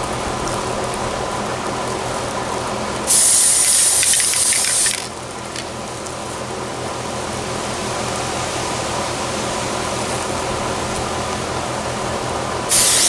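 Aerosol can of Citadel spray primer hissing in one short burst of about two seconds, then starting again near the end, over a steady background hum.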